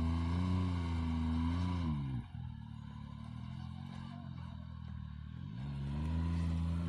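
Can-Am Maverick X3 side-by-side's three-cylinder engine running under throttle, then dropping off sharply about two seconds in. It runs low and quieter for a few seconds, then revs up again near the end.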